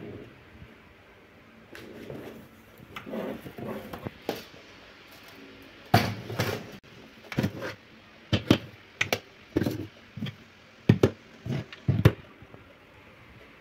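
Clear plastic airtight food-storage canisters being handled and set down on a kitchen worktop: a run of sharp plastic knocks and clicks, coming thick and fast from about six seconds in.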